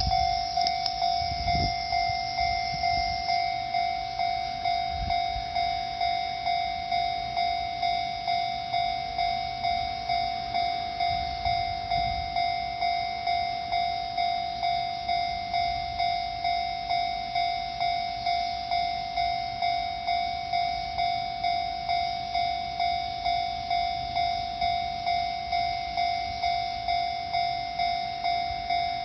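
Japanese railway level-crossing warning bell ringing, a steady electronic clang repeating at an even rhythm, signalling that a train is approaching.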